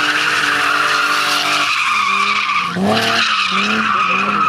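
BMW E30 saloon drifting: its tyres squeal continuously as the engine revs under power. About halfway through, the engine note dips and then swings back up.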